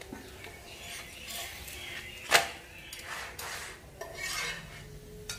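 Steel tongs scraping and clinking against a black iron griddle pan as a roti is turned and pressed, with one sharp metallic clank a little over two seconds in.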